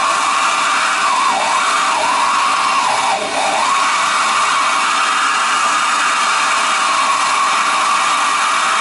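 Soldering torch flame rushing steadily as it heats a copper water-pipe joint for soldering, wavering briefly between one and three seconds in.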